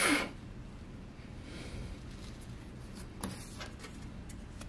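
Faint handling noise of a small plastic dinosaur figure being picked up from artificial grass: light rustling with a soft click about three seconds in.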